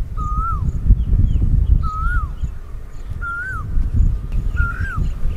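A bird calling four times, about once every second and a half: each call a held whistled note that rises briefly and then drops away, with faint high chirps between, over a loud, uneven low rumble.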